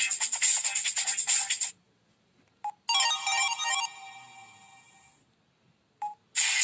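Samsung SGH-U900 Soul mobile phone playing its preloaded ringtones through its small speaker. A busy electronic tune cuts off about a quarter of the way in. After a short blip, a brief melody of a few notes plays and rings out, fading. After another blip, a new tune starts near the end.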